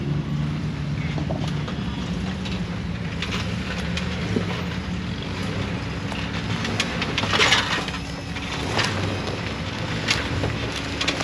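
Jeep engine running steadily at low revs while the vehicle drives slowly, with scattered clicks and knocks and a burst of rattling about seven seconds in.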